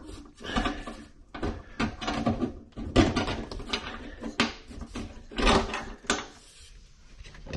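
Plastic sink mounting clips sliding along the metal channel under a stainless steel sink rim: scraping with several sharp clicks and knocks, the loudest about three seconds in.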